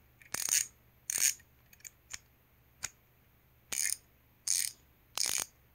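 Bahco 808050S stubby ratcheting screwdriver's 48-tooth ratchet clicking as the shaft is turned back and forth by hand: five short bursts of clicking, with a few single clicks between them.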